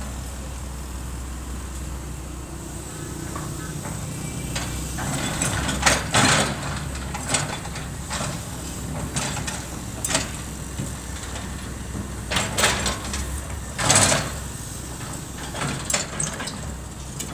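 Wheeled hydraulic excavator's diesel engine running steadily. From about five seconds in, short loud noises from the working machine recur every second or two as the arm and bucket are moved.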